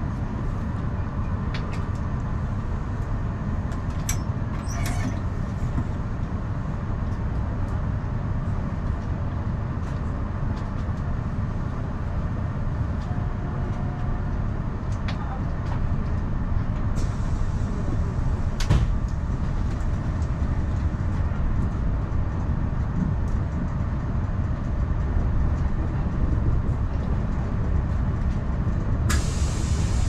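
Passenger coach of a moving train heard from inside: a steady low rumble of wheels running on the rails, with occasional clicks and a sharper knock about two-thirds of the way through.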